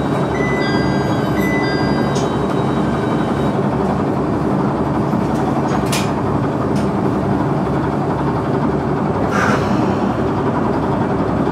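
KiHa 100 diesel railcar's engine idling steadily while the train stands still, heard from inside the car. A few short high tones sound in the first two seconds.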